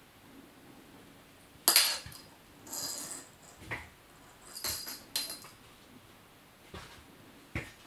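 A kitten playing with a ribbon wand toy: a handful of short, sudden handling sounds, the loudest about two seconds in, some with a faint high ring.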